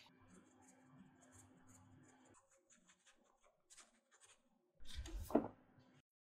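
Icing sugar being sifted through a fine-mesh sieve: faint scratchy taps and rubs of the sieve. About five seconds in comes a louder, deeper thump.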